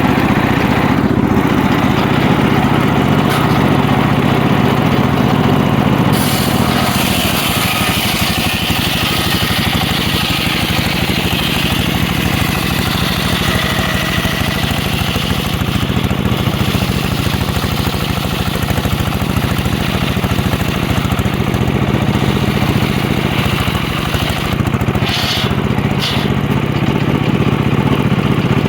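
The engine of a homemade circular sawmill runs steadily. A higher rushing sound joins it from about six seconds in until about halfway, and there are two short sharp sounds near the end.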